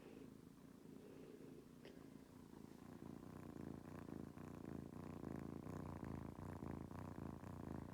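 A kitten purring, a faint steady rumble that grows louder about three seconds in.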